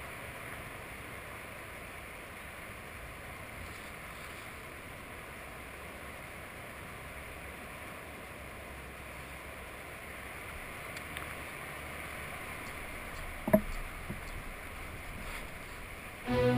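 Steady, even hiss of water and wind around a sea kayak on calm sea, with one sharp knock about three quarters of the way through. Music with bowed strings comes in at the very end.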